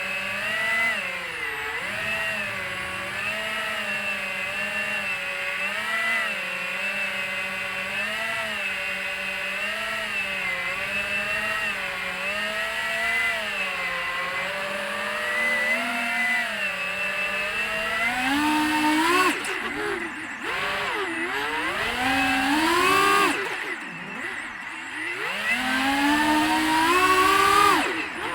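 FPV freestyle quadcopter's brushless motors and propellers whining. The pitch wavers gently with small throttle changes, then in the last ten seconds sweeps sharply up and down with brief drops as the throttle is punched and chopped.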